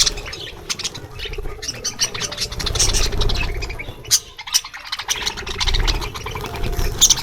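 A flock of farm birds crowding in to feed, giving many short chirps and squawks, with a low rumble underneath.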